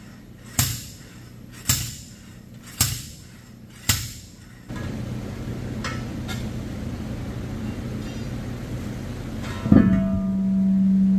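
Four sharp metal-on-metal strikes about a second apart, each ringing briefly: a long-handled bead breaker driven down between a truck tire's bead and its steel rim to break the bead loose. Later a steadier background sets in, and near the end a thump is followed by a steady low hum.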